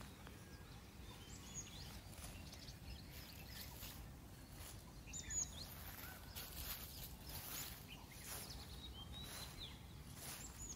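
Faint forest ambience: small birds chirping now and then over a low steady rumble, with a few soft brushing noises.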